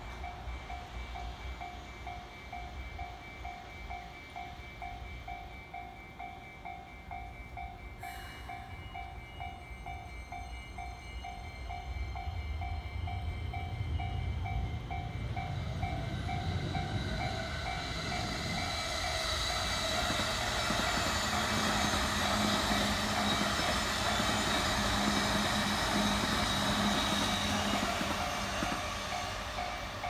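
Japanese level-crossing warning bells ring steadily as a Keihin-Tohoku Line E233-series electric commuter train approaches; its rumble and wheel noise build from about twelve seconds in and are loudest as it passes close by near the end, with a low motor hum.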